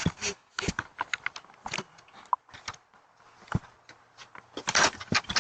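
Irregular clicks, taps and scrapes of a hand handling a video doorbell camera right against its microphone, with one sharper knock about three and a half seconds in.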